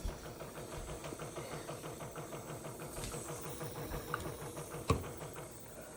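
Single-serve capsule coffee maker (Amazon Basics Dual Brew) running its pump during a K-cup brew: a steady, rapid, even pulsing with some hiss. There is a click at the start and a sharp knock about five seconds in.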